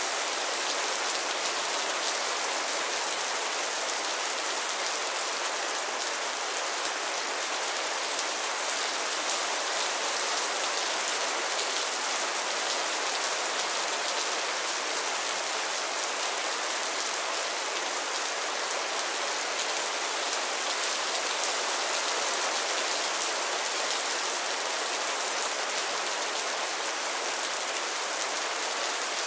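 Mild rain falling steadily on a roof and the ground, a dense, even patter of drops.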